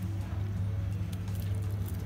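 Background music with a low steady hum and scattered light clicks.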